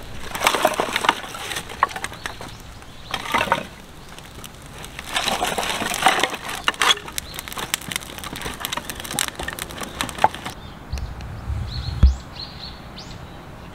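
Irregular bursts of rustling and crackling, dotted with sharp knocks and clicks. Near the end come a low rumble ending in a thud, then a few short chirps.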